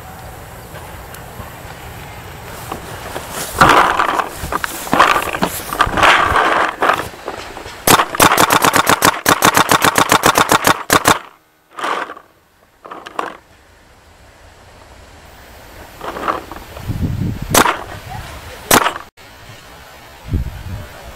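Paintball marker fire: a rapid string of about ten shots a second lasting some three seconds, after several loud bursts of noise, with two single sharp shots later on.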